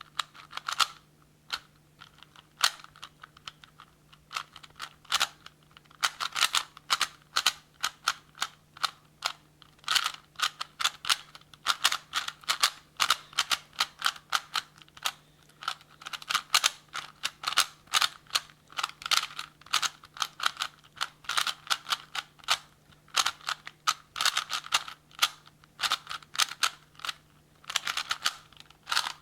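A Rubik's cube being turned fast by hand in a solve: rapid, irregular plastic clicks of the layers snapping round, several a second, with brief pauses between sequences of moves.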